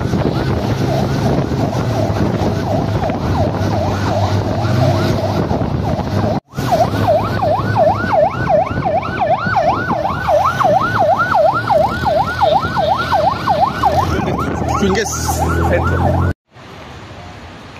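Police vehicle siren in a fast yelp, sweeping up and down about three times a second over a running engine. It breaks off for a moment about six seconds in and stops near the end, leaving quieter steady street noise.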